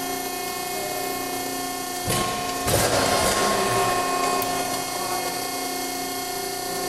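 A 200-ton hydraulic press brake running, its hydraulic pump giving a steady whine made of several constant tones. About two seconds in, a louder rushing noise joins the whine and eases off again after a couple of seconds.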